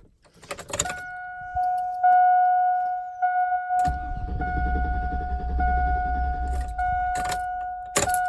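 Keys jangle in the pickup truck's ignition, then a warning chime sounds as a steady tone broken by short gaps about every second. About four seconds in the engine catches and keeps running, with the chime still going. The truck's starter is worn, so it has to be cranked fully and brought back to start.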